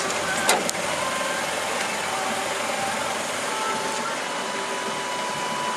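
Car engine idling steadily, with a sharp click about half a second in.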